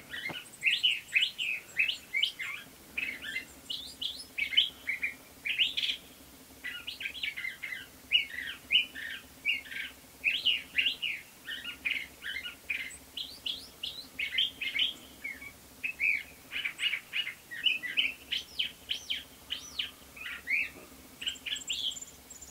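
A songbird singing a long, rapid run of varied chirping and whistled notes, several a second, with a few brief pauses.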